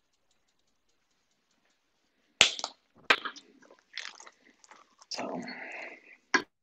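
A spoon knocks and scrapes against a stainless steel mixing bowl, with wet squelching, as a thick tomato fritter batter is stirred. The sharp knocks start about two and a half seconds in, and there is a longer stretch of squelchy stirring a little past five seconds.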